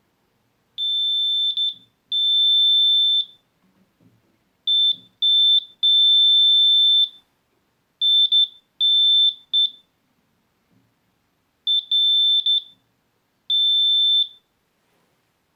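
Arduino-driven buzzer giving a steady high-pitched tone in about nine on-off bursts of uneven length, from short beeps to over a second, some stuttering as they start or stop. It sounds whenever an object is within 5 cm of the ultrasonic distance sensor.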